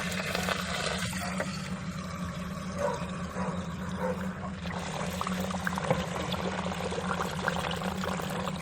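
Water pouring and trickling into a Lister D engine's radiator as the blocked core is flushed of dirt and rust. A steady low hum runs underneath.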